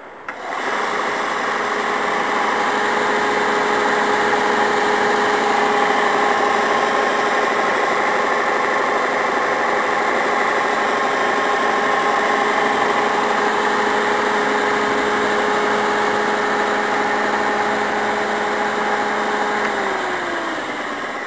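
Kalamazoo S460D 4 x 60 inch belt sander, driven by a 1 hp single-phase motor, started up and running with no load: a steady motor hum and belt whir that comes on suddenly. Near the end the pitch falls as the machine winds down.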